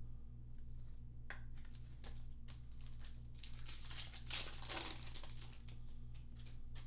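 Plastic wrapper of a Panini Mosaic basketball card pack crinkling as it is torn open and handled, loudest about four to five seconds in.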